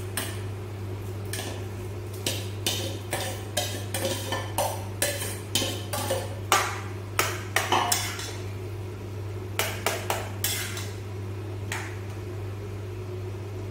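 Steel spoon knocking and scraping against a stainless steel bowl and pan as boiled potato is scooped into a pot of boiling gravy: an irregular string of metal clinks and scrapes, busiest in the middle and thinning out near the end.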